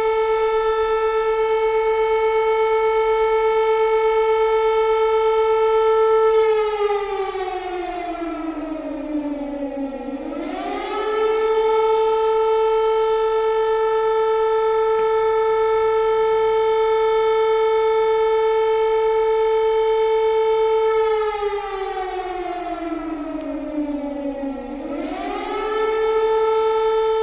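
Civil-defence alarm siren wailing loud on one steady note, twice sliding down in pitch and climbing back up, about fourteen seconds apart.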